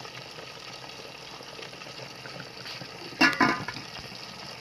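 A pot of potatoes simmering in tomato sauce with a steady, even bubbling. About three seconds in there is a brief louder clatter with a short ring.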